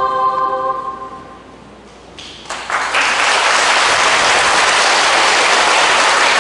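A children's choir's final sung chord fades away in a reverberant church. After a brief hush, the audience breaks into applause about two and a half seconds in, which carries on steadily.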